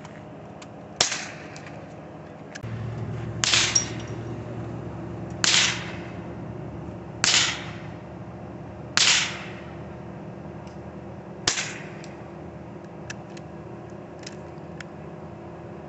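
Scoped rifle fired six times, one shot roughly every two seconds, each a sharp crack with a short echo.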